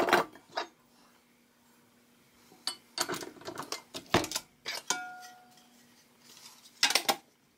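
Metallic clanks and clicks from a KitchenAid stand mixer being set up: its stainless steel bowl is seated and locked onto the base, and the tilting head with the paddle is lowered into place. They come as a few separate clusters of knocks and rattles, with a brief squeak about five seconds in. The mixer motor is not running.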